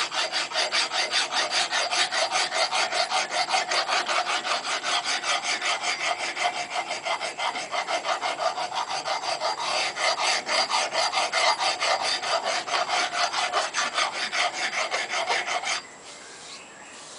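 Hand file scraping across the steel edge of a railroad-track anvil in fast, even strokes, about four a second, deburring and rounding the edge to a radius. The filing stops about a second before the end.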